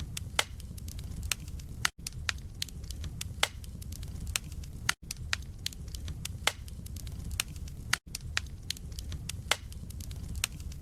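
Wood fire of burning logs crackling in a fireplace: irregular sharp pops and snaps over a low steady rumble, with a brief complete dropout in the sound about every three seconds.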